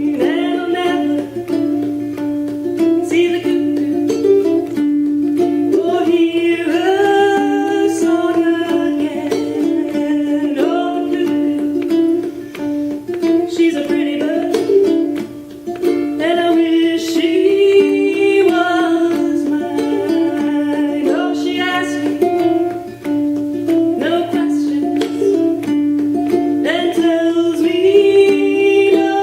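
Ukulele played clawhammer style, a steady picked rhythm over a repeated low drone note, accompanying a folk tune.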